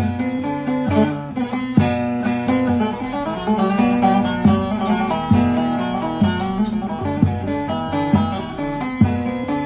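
Short-neck bağlama (saz) with a carved chestnut bowl being played: a melody of quick plucked notes with strong strokes recurring about once a second.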